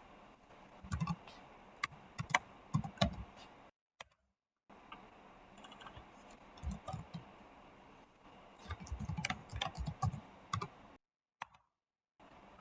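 Computer keyboard typing and mouse clicks in short, scattered bursts, with pauses between them. The sound cuts out completely twice, for about a second each time.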